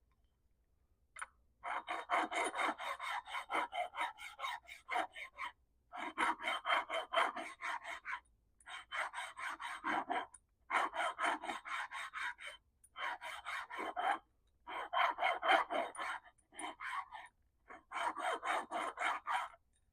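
A carburetor's mating face rubbed back and forth on abrasive paper over a flat plate in quick, even strokes, about four or five a second, in short spells with brief pauses. This is the flatness check for warpage: an even shiny band all the way around shows the face is flat.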